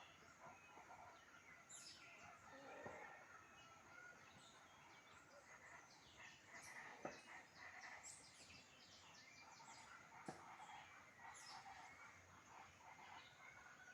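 Faint forest bird chorus: several birds chirping and warbling over one another, with a couple of short sharp clicks in the middle.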